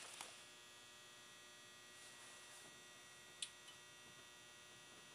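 Near silence with a faint steady electrical hum and whine from the powered-up aircraft avionics panel, and one short click about three and a half seconds in as a button on the panel's display is pressed.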